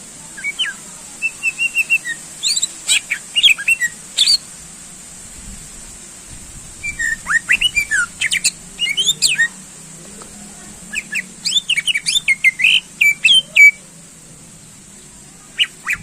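Green leafbird (cucak ijo) singing: three long bursts of rapid, varied chirps and sharp whistled notes with short pauses between, and a fourth burst starting near the end. A faint steady hiss and hum run underneath.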